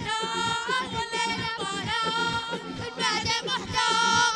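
Boys singing an Arabic devotional chant through microphones, holding long, slightly wavering notes.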